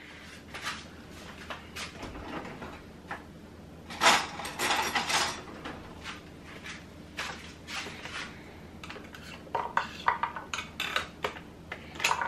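Handheld garlic mincing gadget being worked on garlic cloves: irregular clicks and knocks, a louder rattling clatter about four seconds in, and a run of quick clicks near the end.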